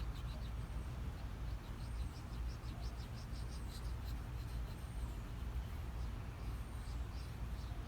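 Steel knife blade being stroked back and forth across a whetstone, a run of quick, light scraping strokes over a low steady rumble.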